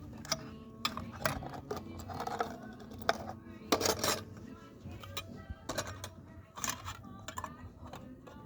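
Irregular light metallic clicks and clinks of small metal objects being handled, several a second at times, over a low background hum and faint voices.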